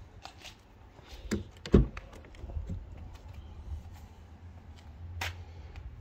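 Volkswagen ID.4's front door being unlatched and swung open: a click and a loud thunk about two seconds in, then a lighter click near the end, over a low rumble.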